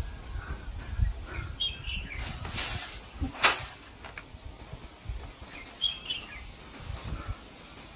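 A straw broom swishing through the air, with one sharp smack about three and a half seconds in. Brief high chirps come twice.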